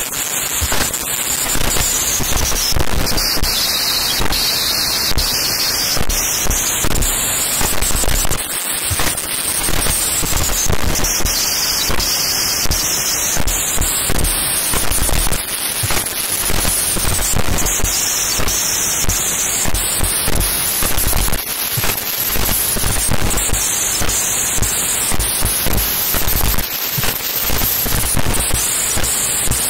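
Loud, harsh crackling static: a distorted glitch-noise effect whose hiss sweeps slowly up and down in pitch, about every six seconds.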